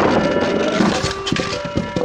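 Electronic sirens of toy ambulance and police minicars sounding several at once, one stepping back and forth between a low and a higher tone, over a run of sharp plastic clicks and clatter.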